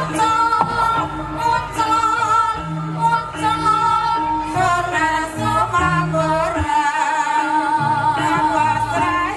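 Javanese gamelan music for a kuda kepang (ebeg) dance: a female voice sings long wavering notes over the ringing notes of gamelan metallophones and low drum strokes.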